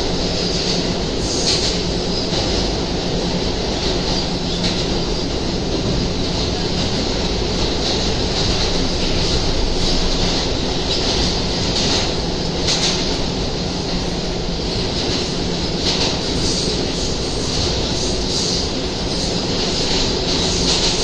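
R211A New York City Subway car in motion, heard from inside the car: a steady rumble and rush of running noise with irregular sharp clicks and rattles from the wheels and car body.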